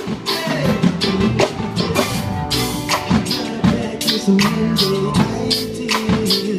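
Live reggae band playing amplified: drum kit keeping a steady beat under electric guitars and keyboard.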